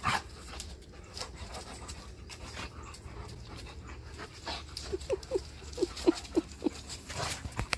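A Siberian husky and an Alaskan malamute play-wrestling, panting and scuffling. From about five seconds in comes a run of about eight short whines.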